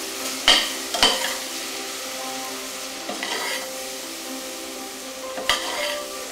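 Red onions sizzling in a stainless-steel pot as they are stirred with a metal spoon, the balsamic vinegar boiling down almost to dryness. The spoon knocks sharply against the pot three times: about half a second in, a second in, and near the end.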